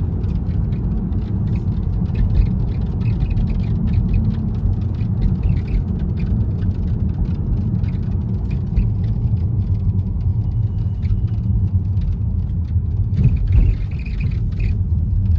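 BMW GT sunroof rattling and clicking in quick, irregular ticks over the steady low rumble of the car in the cabin. This is the fault noise the sunroof is making.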